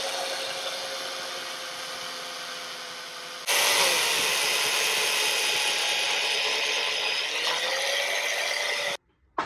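Portable chain mortiser running, its motor whining steadily as the cutting chain bites into a timber beam. It gets louder about three and a half seconds in and stops abruptly near the end.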